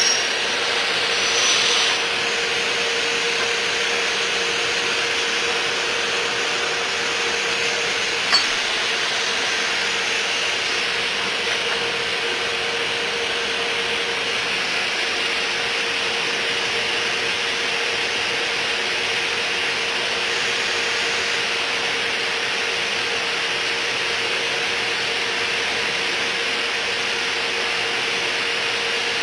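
Automated drilling and routing machine for storefront and curtainwall extrusions running: a steady whir of motors and air with a constant hum, slightly louder for the first two seconds, and one sharp click about eight seconds in.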